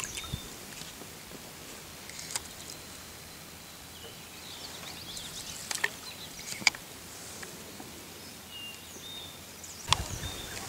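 Quiet pond-side outdoor background with faint bird chirps and short whistled calls, broken by a few sharp clicks, the loudest about two-thirds of the way in.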